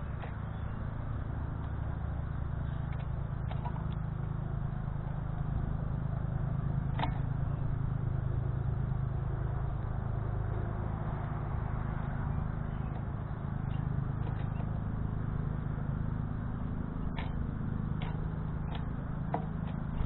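A steady low outdoor rumble with a few faint, scattered clicks of birds pecking at seed on a metal feeder tray.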